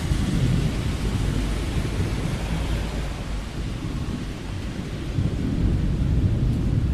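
Thunder rumbling over steady heavy rain, the low rumble swelling about half a second in and again around five to six seconds in.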